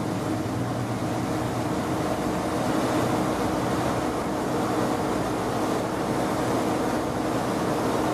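Cabin sound inside a Class 153 diesel railcar on the move: the underfloor Cummins diesel engine drones steadily alongside a constant rumble and hiss of the running gear, growing slightly louder about three seconds in.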